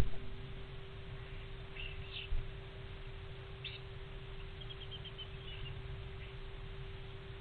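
Faint, short bird chirps, one at a time and then a quick run of about a dozen ticking notes near the middle, over a steady hum. A single soft low bump about two seconds in.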